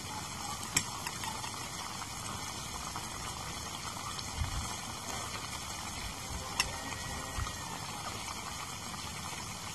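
A steady hiss throughout, with two sharp clicks, one about a second in and another some six seconds later, from utensils knocking against the wok and the plastic bowl as cooked beef is spooned from the wok into the bowl.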